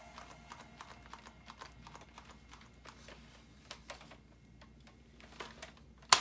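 Faint, irregular light clicks and taps of plastic toys being handled, a few a second, with one louder click right at the end.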